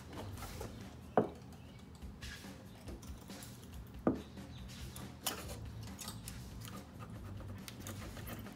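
A thin tool and hands working at the plastic underside of a car's rear spoiler: light scratching with a few sharp clicks, the loudest about a second in, four seconds in and five seconds in, over a low steady hum.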